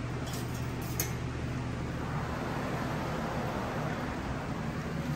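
Electric fan running steadily with a low hum and a noisy whoosh of air, with a few light clicks about a second in.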